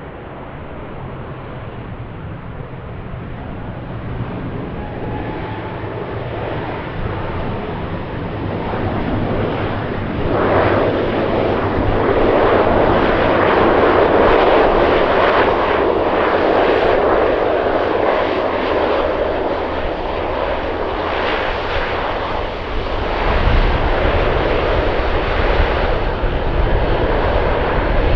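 Airliner's engines passing close by: a distant hum that builds and swells about ten seconds in into a loud, steady rush, with a deeper rumble joining near the end.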